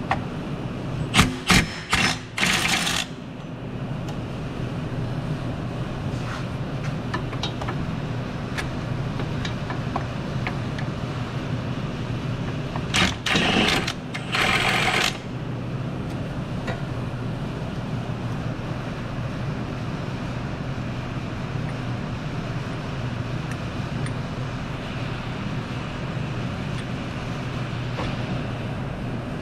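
Ratchet with a universal joint and 14 mm deep socket working on the power steering pump mounting bolts: short bursts of metallic clicking and clatter about a second in and again around thirteen seconds in, over a steady low hum.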